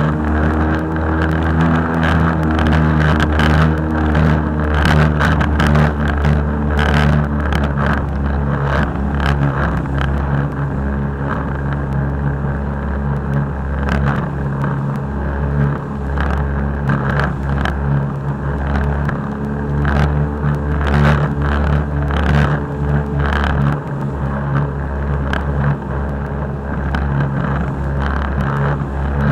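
Jet ski engine running steadily at cruising speed, a low drone, with frequent short slaps and splashes of water against the hull as it crosses the chop.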